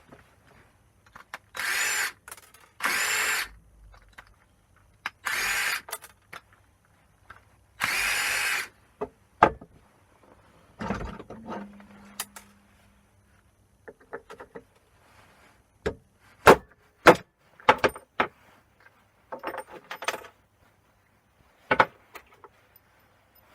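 A power drill or driver run in four short bursts, as when backing out screws while stripping scrap plugs for their brass, followed by scattered clicks and knocks of small parts being handled.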